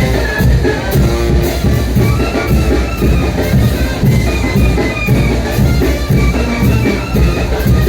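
Mexican brass banda playing a son de chinelo: brass melody over a steady, even drum beat.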